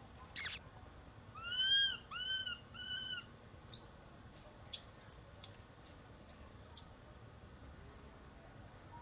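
High-pitched animal calls: a single sharp squeak, then three arched calls that rise and fall in pitch, then a run of seven short, sharp, high chirps that each drop in pitch.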